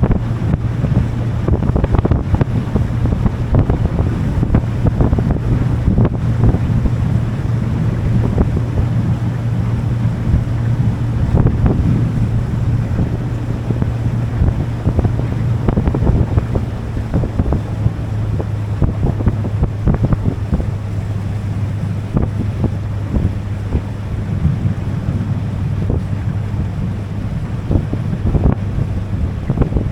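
A boat's motor running steadily under way, a constant low drone that settles slightly lower in pitch a little past halfway. Wind buffets the microphone in rough gusts throughout.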